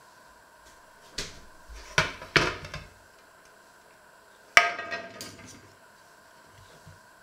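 A metal butter dish and a clear plastic container being handled and set down on a wooden worktop. A cluster of knocks and clatter comes between about one and three seconds in, then one sharp clack with a brief ring about four and a half seconds in.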